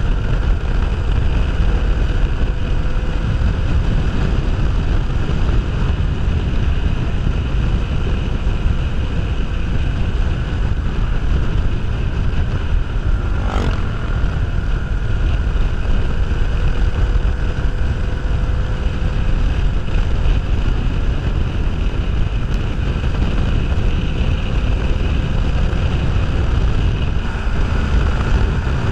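Wind rushing over a camera microphone on a moving motorcycle, steady and heavy, with the Kawasaki Ninja 500R's parallel-twin engine running at a steady cruise underneath, its pitch drifting slowly. A single sharp click about halfway through.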